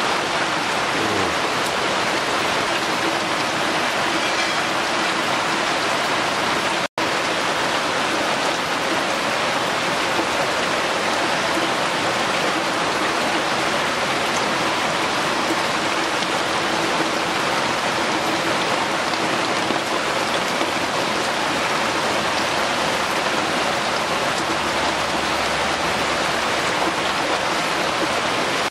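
Steady rain, loud and even, with a brief break about seven seconds in.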